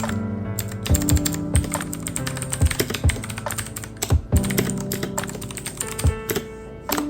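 Typing on a computer keyboard: quick, irregular keystrokes, over background music with sustained chords.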